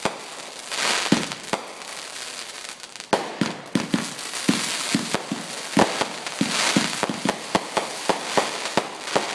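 Aerial fireworks going off: hissing and crackling stars with a few pops, then from about three seconds in a rapid string of sharp bangs, about three a second, over continuing crackle.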